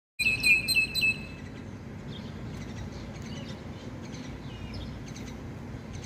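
Starlings chirping: a loud run of about five sharp, quick chirps in the first second, then fainter scattered calls over steady low background noise.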